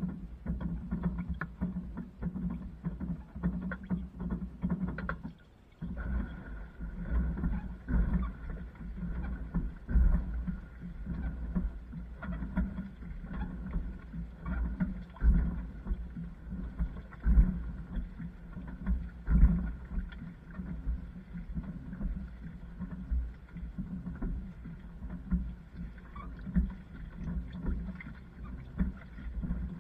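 Water sloshing and clothes tumbling in a running LG washing machine drum, heard from inside the drum: an uneven, surging low rumble that swells and falls with each turn, with a brief pause about six seconds in.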